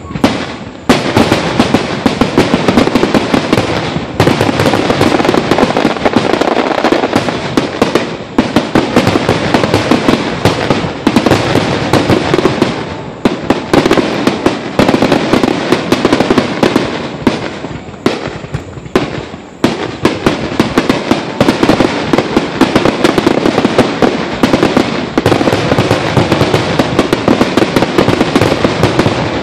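Aerial fireworks going off in a rapid, continuous barrage. Many bangs a second run together into a steady rumble and crackle, broken by a few short lulls.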